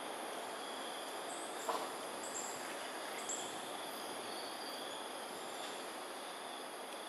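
Steady insect trilling over a constant outdoor background noise, with a few short, high, falling chirps between about one and three and a half seconds in.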